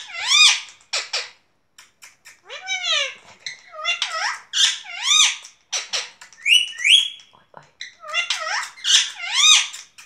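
Pet green parakeet talking: high-pitched, sing-song runs of mimicked word-like phrases in a nasal, squeaky voice, with two short rising whistles about six and a half seconds in.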